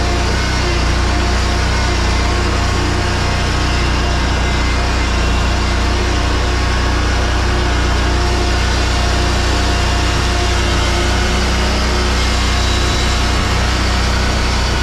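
Engine of an Exmark stand-on mower running steadily.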